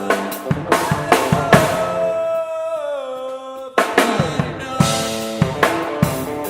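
Band music: a drum kit's kick and snare hits under sustained guitar chords. About two seconds in the chords bend downward and the low end drops out. The drums and chords come back in hard at about four seconds.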